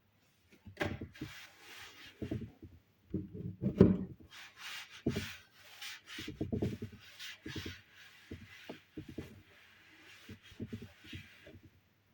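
Irregular knocks and clicks of kitchen utensils and containers being handled, with stretches of scraping or rubbing; the loudest knock comes about four seconds in.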